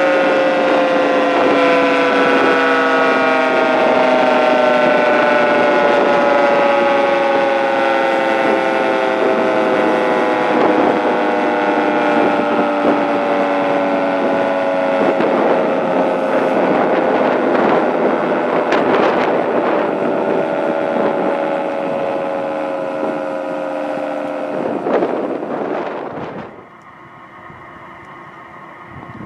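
Federal Signal 3T22 three-tone siren winding down after its signal, its chord of tones sliding slowly and steadily lower in pitch. About 25 seconds in the siren sound cuts off abruptly, leaving only a faint steady hum.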